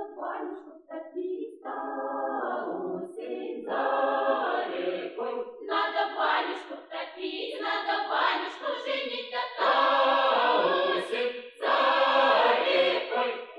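A village folk choir singing a Russian ritual calendar song from a folklore expedition recording, in sung phrases of a second or two with short breaths between them.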